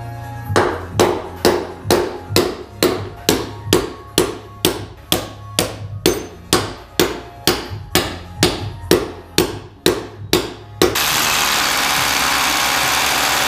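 A hammer striking a steel anchor bolt at a car-lift post's base plate on a concrete floor, about two blows a second, evenly for about ten seconds. About eleven seconds in, a hammer drill starts boring into the concrete with a loud steady noise.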